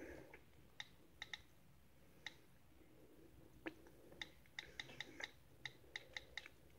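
Faint taps and clicks from a thumb working a smartphone's touchscreen: about a dozen short, sharp clicks at an uneven pace, coming faster in the second half.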